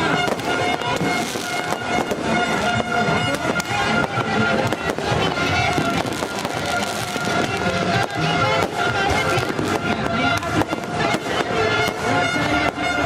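Fireworks going off in quick succession, a steady run of sharp bangs and crackles, over music with long held tones.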